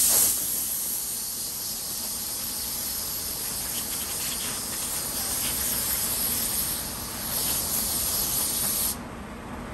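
Compressed air hissing steadily from a handheld blow gun aimed at a wooden rifle stock, drying off an acetone wipe. The hiss dips briefly about seven seconds in and cuts off sharply near the end.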